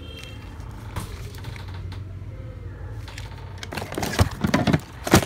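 A shrink-wrapped spare part and its cardboard box being handled, crinkling and clicking, loudest from about four seconds in, over a steady low hum.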